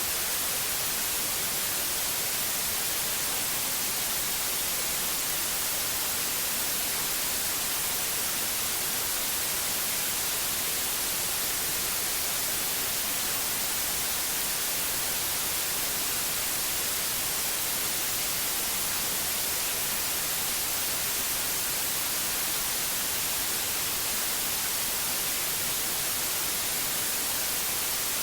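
Steady white noise: an even, unchanging hiss, brightest in the treble, played as a sleep sound for babies.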